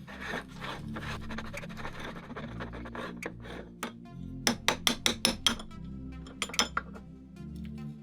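Motorised meat grinder crunching Oreo cookies, with a dense crackle at first and a cluster of sharp clicks and clinks about halfway through, over background music.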